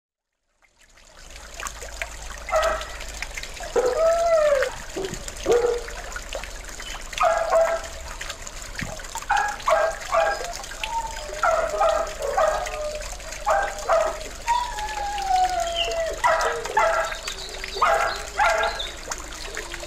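Dogs barking again and again, short barks at irregular intervals with some longer calls falling in pitch, over the steady trickle of a small garden pond fountain. The barking is the nuisance barking from a neighbouring dog breeder's premises.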